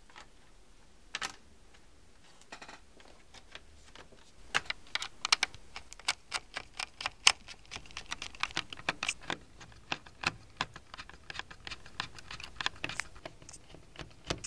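Small screws being driven into a laptop's plastic bottom cover with a hand screwdriver: a few separate clicks at first, then from about four seconds in a quick, irregular run of sharp clicks and ticks, several a second, as the tip works in the screw heads.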